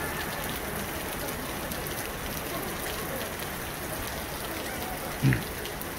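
Steady rain falling, an even hiss, with a single dull thump about five seconds in.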